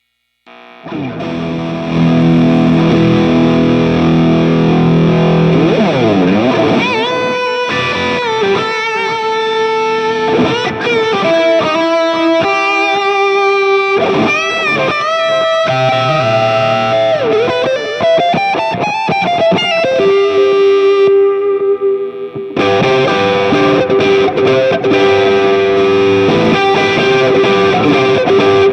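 Electric guitar played through Saphue effect pedals. It opens with held chords, then moves to a lead line with string bends and long sustained notes.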